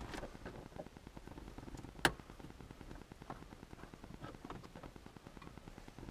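Faint, scattered clicks and taps of hand work with a screwdriver on plastic interior light covers, with one sharp click about two seconds in.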